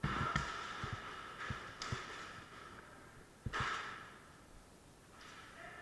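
A person breathing hard in a few loud hissing breaths, with several short low knocks in the first two seconds.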